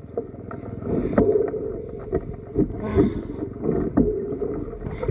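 A bicycle rattling and knocking as it is ridden over a bumpy dirt track, with irregular knocks over a steady rumble of rolling and wind on the microphone.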